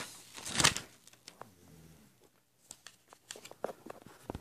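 Paper pages of a spiral-bound sketchbook being turned and handled: a loud rustle about half a second in, then scattered soft rustles and clicks, with a sharp knock near the end.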